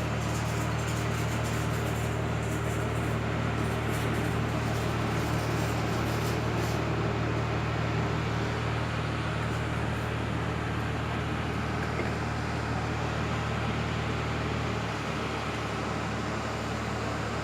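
Steady machine hum with a broad noise over it, crackling in the high end until about seven seconds in; the low hum drops a little near the end.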